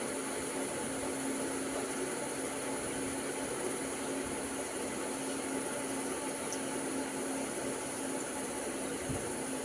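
Steady hiss with a constant low hum and a thin high whine.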